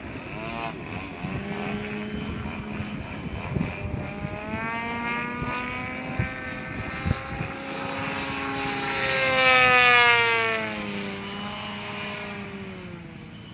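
ZDZ 180 two-stroke gas engine with Pro-RC canister exhausts, turning the propeller of a large-scale Badan Vertigo RC aerobatic plane in flight. Its pitch rises and falls with the throttle as it manoeuvres. The engine is loudest about ten seconds in as the plane passes close, then its pitch drops as it moves away.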